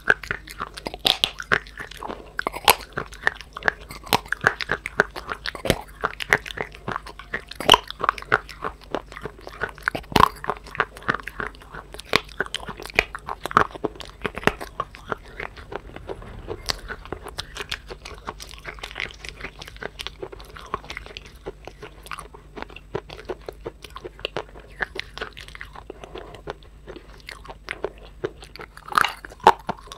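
Close-miked biting and chewing of dry clay: a dense, irregular run of sharp crunches and crackles, several a second.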